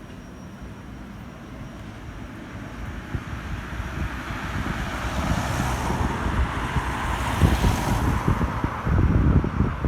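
A vehicle passing on the street, growing louder from about three seconds in, then fading. Wind buffets the microphone, with gusts strongest near the end.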